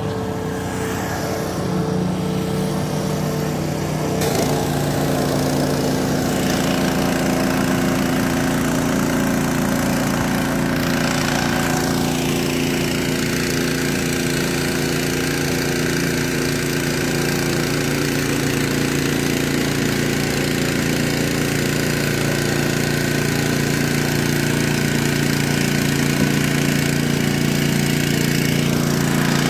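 Boat engine running steadily, its note changing about four seconds in and then holding.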